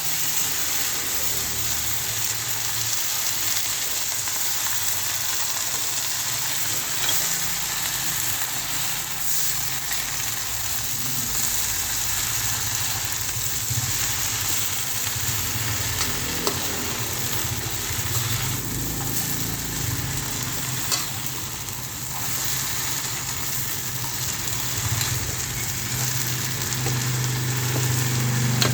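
Water spinach stir-frying in a hot pan with garlic and chili: a steady sizzle as the water left on the washed leaves hits the oil, with a few clicks and scrapes of the spatula stirring.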